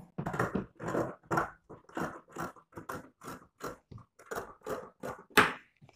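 Tailor's scissors snipping through blouse fabric in a quick, even run of cuts, about three a second, with one louder snip near the end.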